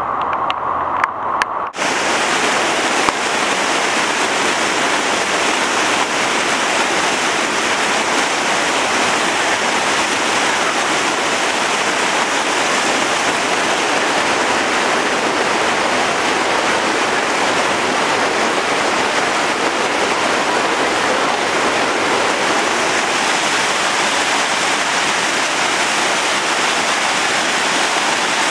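Muddy floodwater rushing and churning in a flash flood, a loud steady rushing noise that begins abruptly about two seconds in.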